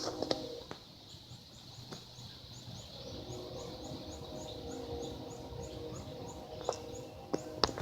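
A songbird repeating one short, high, thin chirp about three times a second for several seconds, over steady outdoor background noise with a faint low hum. A few sharp clicks come near the end.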